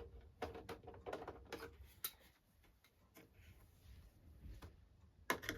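Scattered faint clicks and taps of hands handling a Samsung Sky+HD satellite box's plastic casing, a few a second, sparser in the middle and busier again near the end.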